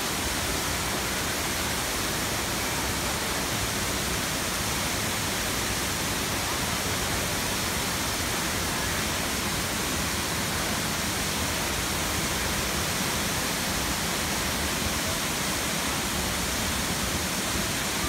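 Steady, unbroken rush of a large waterfall, heard close to its foot.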